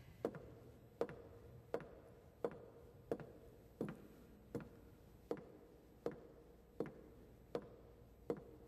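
Slow, evenly paced footsteps on a wooden floor, about one step every three-quarters of a second, each with a short echoing ring.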